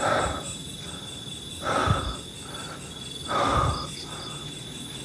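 Steady high-pitched chirring of insects, typical of crickets, broken by three brief noisy sounds about a second and a half apart.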